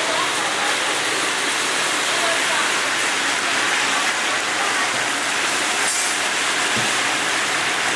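Food deep-frying in hot oil, a steady loud sizzle.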